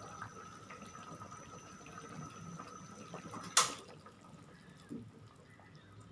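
Quiet kitchen background with a faint steady high whine, broken by one sharp click about three and a half seconds in and a softer knock a little later.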